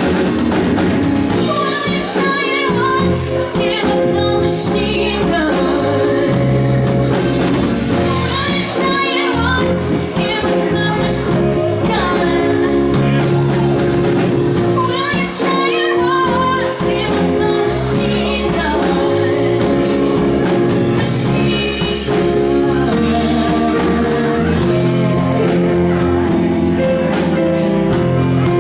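Live band playing: a female vocalist sings over keyboard, electric bass and a drum kit with cymbals.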